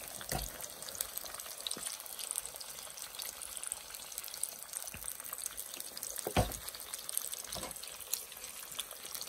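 Eggs frying in a cast-iron skillet: a steady sizzle with fine crackling, broken by a few short knocks, the loudest a little past six seconds in.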